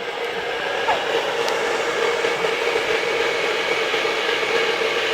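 Hand-held hair dryer running steadily, an even blowing hiss with a constant hum.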